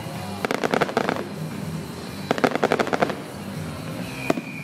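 Fireworks display going off: two volleys of rapid crackling reports, each lasting under a second, then a single sharp bang near the end.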